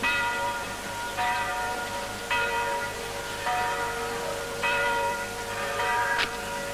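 A bell tolling, struck again about every second and a bit, each stroke ringing on and fading before the next. There is a sharp click near the end.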